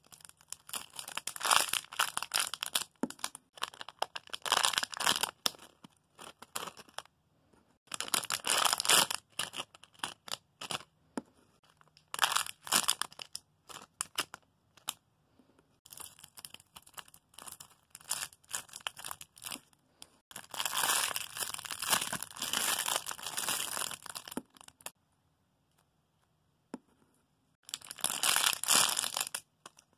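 Crinkling plastic as squishy toys are picked up and handled, in repeated bursts of rustling with short pauses between them.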